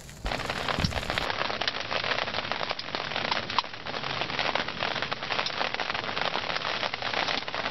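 Rain pattering on the fabric roof and walls of a pop-up hunting ground blind: a dense, steady crackle with many small sharp ticks, starting abruptly just after the start.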